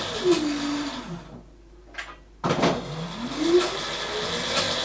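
Electric drive motor of a ride-on mower converted to electric, whining as it spins up and winds down under pedal control. A falling whine dies away, then after a short pause and a click a second whine rises, holds, and starts to fall again near the end.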